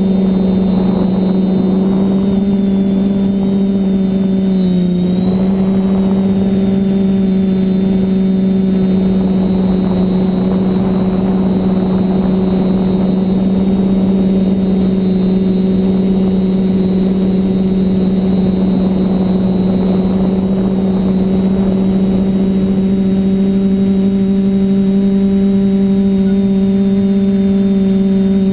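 Electric motors and propellers of a TBS Discovery clone quadcopter, heard from its onboard camera, humming steadily in flight with a high electronic whine above. The pitch dips briefly about five seconds in, then holds steady.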